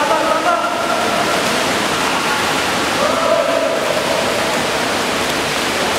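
Steady rushing noise of water polo players' splashing as they swim the crawl, mixed with spectator din, with drawn-out shouts from voices near the start and again about three seconds in.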